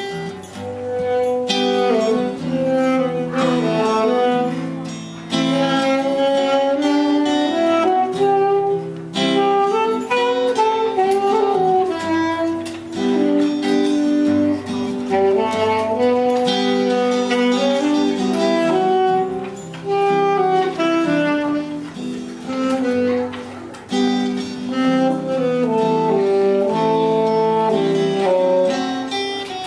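Instrumental music played live: a melody moving note by note over sustained chords.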